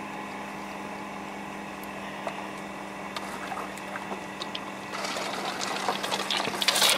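Small 12-volt air compressor of a Lippert Floë 636 Induratec drain-down unit running with a steady hum, forcing air through the RV's water lines to push the water out of the outside shower line. A louder hiss and rattle builds up about five seconds in.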